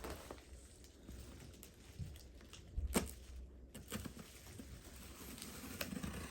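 Cardboard shipping packaging being handled: scattered faint taps and rustles, with one sharper click about three seconds in.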